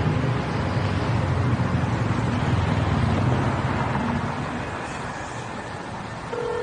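Car engine and tyre rumble, with road noise, as a car pulls in and slows to a stop, growing quieter over the last couple of seconds. A steady phone ringing tone begins near the end.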